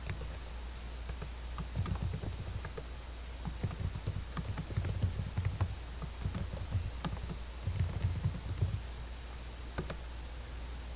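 Typing on a computer keyboard in irregular runs of keystrokes, with a few separate clicks, over a steady low hum.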